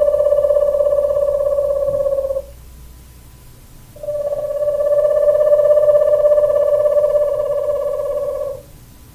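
An owl calling with a long trill held on one steady pitch, twice: the first trill ends about two and a half seconds in, and after a short break a second runs for about four and a half seconds.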